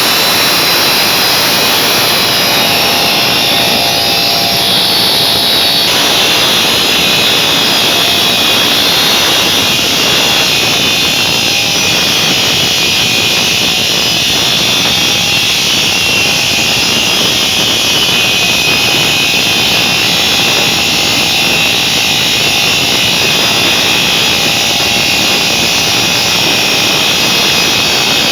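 CNC marble cutting machine running: a loud, steady, high-pitched hiss and whine, with a slight shift in its tone about six seconds in.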